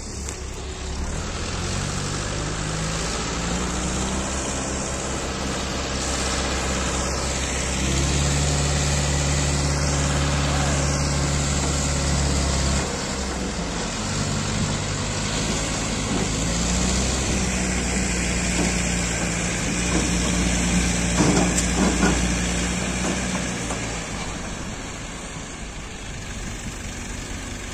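Diesel engines of Escorts Hydra 14 pick-and-carry cranes running under load while lifting a steel shipping container, revving up and settling back several times. A few sharp knocks come a little past two-thirds of the way through.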